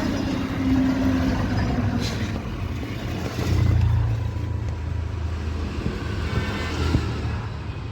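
A motor vehicle engine rumbling low and steady, swelling louder for about half a second around three and a half seconds in.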